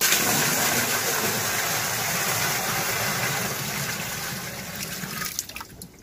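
Water gushing in a thick stream into the empty drum of a top-loading washing machine. It starts suddenly, holds steady, then tapers off and stops about five and a half seconds in.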